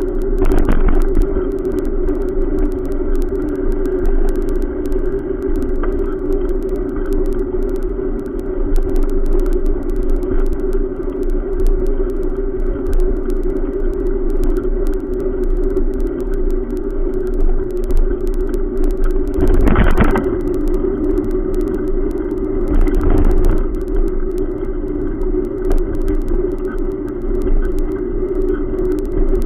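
Steady wind and rolling noise on a camera carried on a moving bicycle, with road traffic passing alongside. There is a short jolt about two-thirds of the way through and another a few seconds later.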